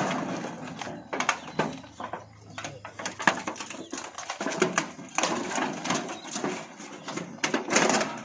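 Chickens calling, mixed with irregular knocks and scuffling.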